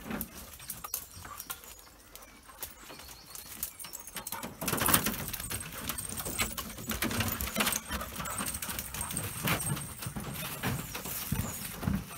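Footsteps of a person and dogs on a wooden boardwalk: irregular knocks on the planks, louder from about five seconds in.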